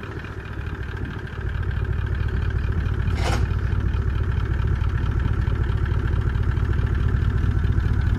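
Engine of a large farm machine running as it is driven slowly forward, getting louder about a second and a half in and then holding steady. A brief sharp sound cuts through once, a few seconds in.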